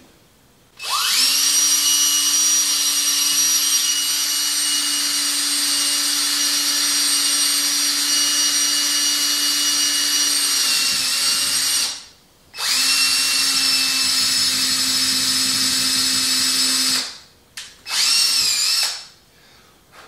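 Cordless drill with a 1/8-inch bit drilling into a small metal die, its motor giving a steady high whine. It runs for about eleven seconds, stops briefly, runs again for about four seconds, then gives one short burst near the end.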